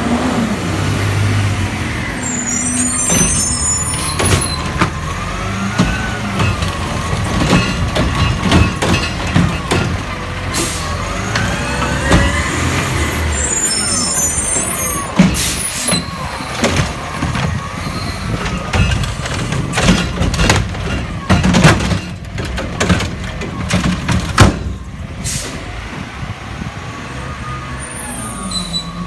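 Garbage truck working: its engine running under a whine that rises and falls, with repeated clanks and knocks and short hisses of air brakes.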